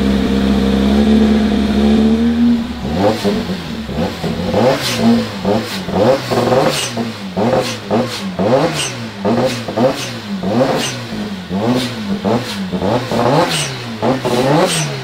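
Lancia Delta S4 twincharged (supercharged and turbocharged) four-cylinder engine revving with the car standing still. It holds steady revs for a couple of seconds, then is blipped quickly over and over, more than once a second, with sharp cracks at many of the blips.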